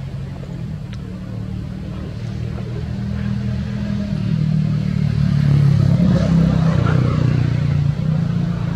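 A motor engine running steadily, growing louder from about three seconds in and peaking around six seconds.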